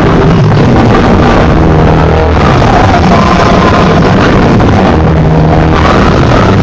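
Very loud music with a heavy, steady bass, blasted from a competition DJ sound system's speaker stacks and so loud that it sounds overdriven and distorted.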